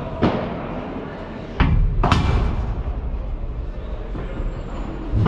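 Padel rally: four sharp impacts of the ball being struck by rackets and rebounding off the court and walls. The one about a second and a half in is the heaviest thud. Each hit echoes in a large hall.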